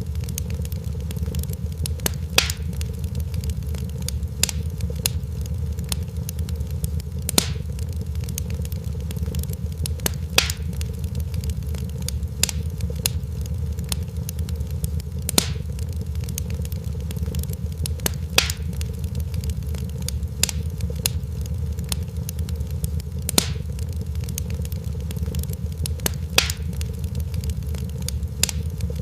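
Wood fire crackling: sharp pops about every second or two over a steady low rumble.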